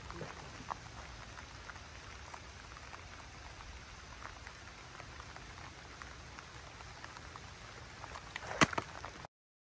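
Rain falling, a steady hiss dotted with small drop ticks, with one sharp knock near the end before the sound cuts off.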